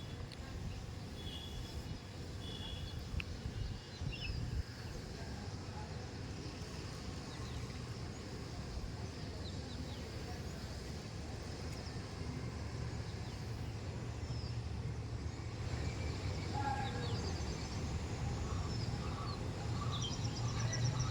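Outdoor ambience: a steady low rumble with scattered bird chirps, and a run of short repeated calls near the end.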